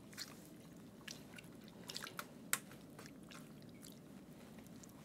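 Faint wet squishing and crinkling of a soaked beef cap casing being twisted and knotted by hand, with a few soft clicks, the sharpest about two and a half seconds in.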